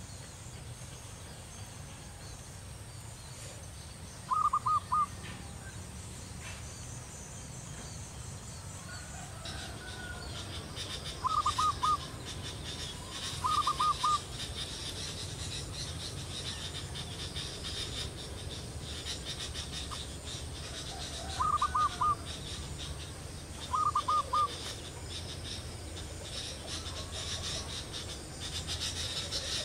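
Zebra dove (perkutut) cooing: five short phrases of about four quick notes each, most of them in pairs a couple of seconds apart. A faint, high insect chirr comes in about a third of the way through.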